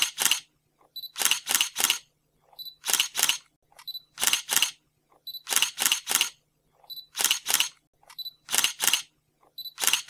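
Camera shutter sound effect repeating about every one and a half seconds: each time a short high beep, then two or three quick sharp clicks.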